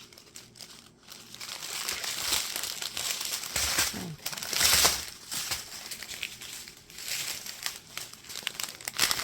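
Plastic packaging crinkling and rustling as it is handled, with the loudest crinkling a little before halfway.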